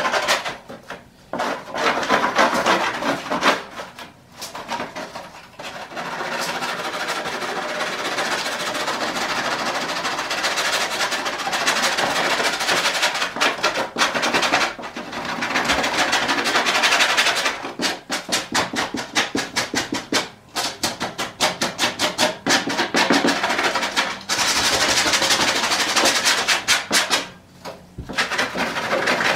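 Rough scraping of crumbled old foam off a car headliner's fiberboard backing with a hand tool: runs of rapid rasping strokes broken by brief pauses.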